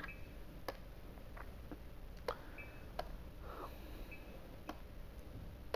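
Low room hiss with about ten faint, scattered clicks and taps, and a few brief faint high tones.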